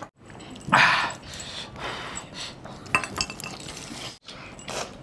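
Close-up eating sounds of chicken curry eaten by hand: wet chewing and smacking, with a louder noisy mouth sound about a second in and another near the end.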